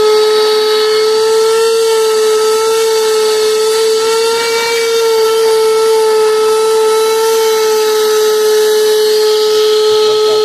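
Vacuum cleaner running with a steady, high whine, its hose nozzle sucking up dust and sand from a car's floor carpet. The pitch wavers slightly midway as the nozzle works the carpet.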